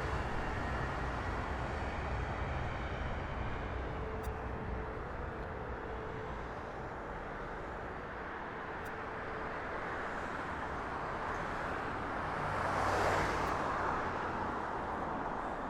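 Jet airliner engines heard at a distance as a steady rush with a faint whine that fades over the first several seconds. A brief swell of noise comes about thirteen seconds in.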